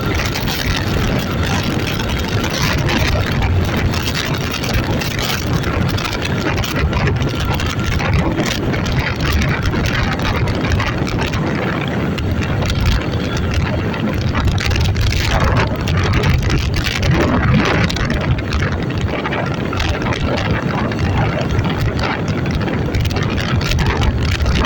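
A motor vehicle's engine running steadily under a constant rushing noise.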